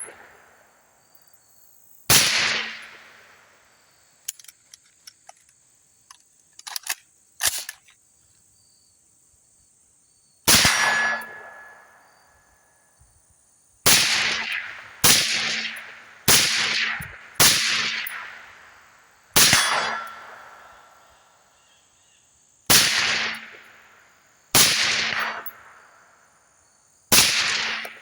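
Suppressed PWS MK111 Mod 1-M long-stroke piston rifle firing ten single shots through a SilencerCo Omega 36M suppressor, each a sharp report with a quickly fading tail, unevenly spaced, with four in quick succession about halfway through. A few small clicks come between the first and second shots.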